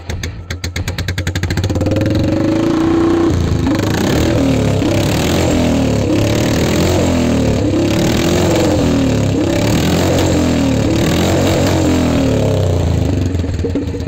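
Royal Enfield Bullet-based chopper's single-cylinder engine, heard through a handmade free-flow stainless steel exhaust. It idles with evenly spaced thumps, is revved up about a second and a half in, and is then blipped repeatedly, the revs rising and falling several times before settling back near the end.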